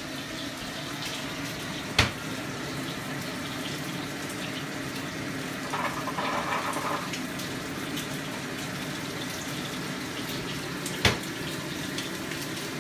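Steady hiss of water running from a kitchen tap. Over it come a sharp knock about two seconds in, a short rustle in the middle, and another sharp knock near the end as the stainless steel trash can's lid drops shut.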